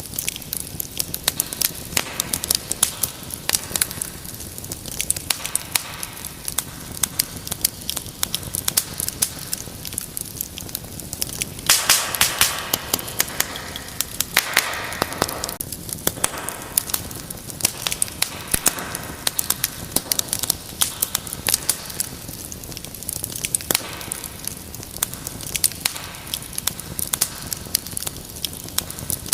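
Fireplace wood fire crackling and popping steadily, with sharp snaps over a soft hiss. About halfway through, a few seconds of louder, denser crackling and hiss.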